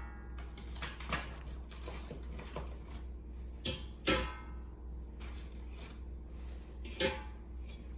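Frozen chicken nuggets put one by one into an empty air fryer basket: about five light knocks, spread out with pauses between them, over a steady low hum.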